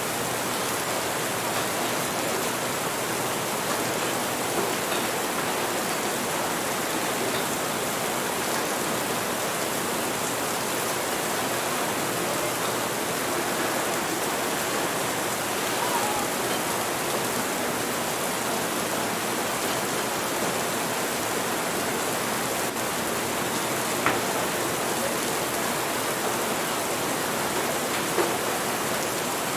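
Steady rain, an even hiss of falling water, with a few faint brief taps now and then.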